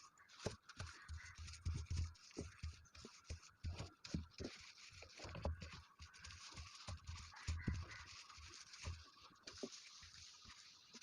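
A cloth rubbing and wiping over the inside surfaces of a refrigerator, with scratchy scrubbing and irregular light knocks and bumps.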